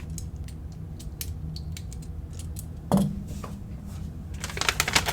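Lego bricks being handled and pressed together: scattered small plastic clicks and taps, with a louder knock about three seconds in. Near the end a quick flurry of clicking and rustling starts.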